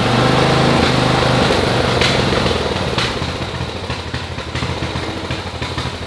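Briggs and Stratton engine of a riding lawn mower, just started and running on a freshly replaced carburetor. Loudest for about the first two seconds, then settling slightly quieter and steady.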